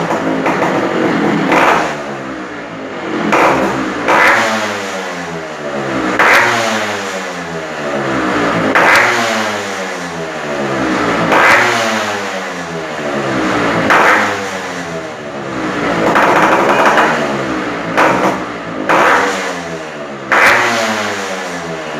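Yamaha RX two-stroke motorcycle engine with an in-built expansion chamber exhaust being revved in repeated throttle blips. Each blip rises sharply and then falls slowly back, about every two to three seconds; it is loud.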